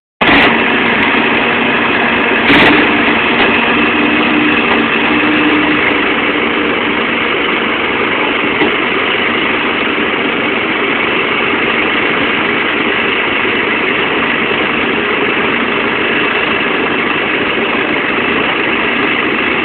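Hydraulic excavator's diesel engine running steadily as its bucket presses a steel rod down into the ground, with a single sharp knock about two and a half seconds in.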